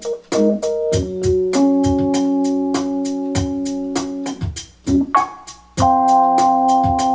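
Keyboard music: long-held organ-sound chords that change a few times, with a short lull about two-thirds of the way through, over a fast, steady drum-machine tick.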